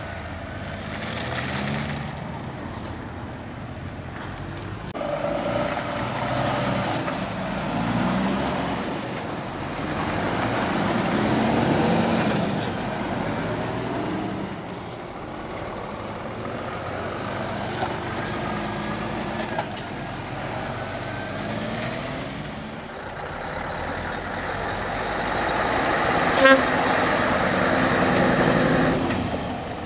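Scania diesel tractor units driving past one after another. Their engines rise in pitch again and again as they accelerate away, and the level swells and fades as each truck passes. Near the end comes one brief, sharp, loud blast.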